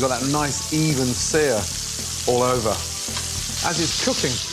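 A lamb leg steak and crushed garlic cloves sizzling steadily in very hot oil in a frying pan, with voice-like pitched sounds over it at times.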